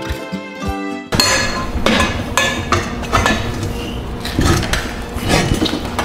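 Background music for about the first second, then it cuts to a run of metal clanking and knocking: the bar of a manual tire changer being levered around its mast against the wheel rim, working the tire bead over the rim.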